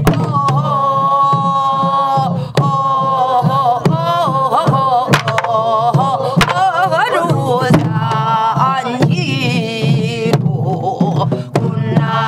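A group singing a Namdo folk song in the Korean traditional vocal style, with a wavering, bending line. They keep time on soribuk barrel drums struck with wooden sticks, a sharp stroke a little over a second apart.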